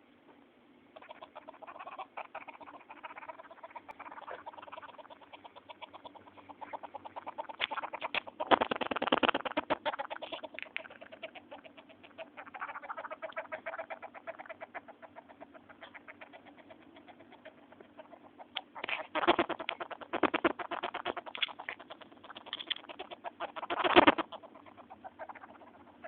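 Pet mouse making a strange noise: a rapid, chattering run of tiny clicks, with louder spells about a third of the way in, about three quarters of the way in, and again near the end.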